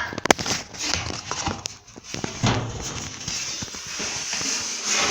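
Drum support rollers from an LG electric dryer handled and turned by hand, making an irregular clattering and knocking with a few sharp clicks near the start. The rollers are worn, the cause of the dryer's noise.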